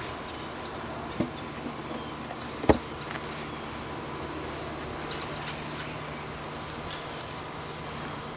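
Honeybees humming steadily around an open hive while the wooden hive parts are set back in place, with a sharp knock about a third of the way in and a lighter one just before. A short high chirp repeats about twice a second throughout.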